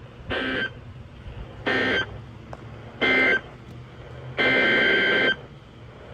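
Emergency Alert System SAME data bursts on NOAA Weather Radio, buzzy two-tone digital chirps. Three short end-of-message bursts come about a second and a half apart, marking the end of the tornado warning. Then two of the longer header bursts that open the next alert follow, over a low hum from the radio.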